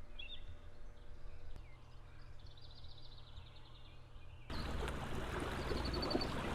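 Small birds chirping and trilling over quiet outdoor background. About four and a half seconds in, it jumps abruptly to a louder steady rush of noise, with another short trill still heard.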